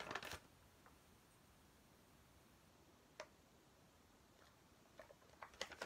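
Near silence: room tone, with a few faint isolated clicks, the sharpest about three seconds in.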